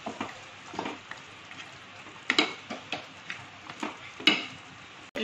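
Wooden spatula stirring and scraping through thick coconut-milk prawn curry in a frying pan, in several separate strokes, over a faint steady sizzle from the simmering curry.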